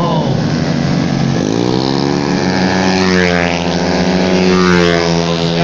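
Racing automatic scooter engine from the 130 cc tuned-standard class, revving up as it accelerates. Its pitch climbs from about a second and a half in, then holds high and steady.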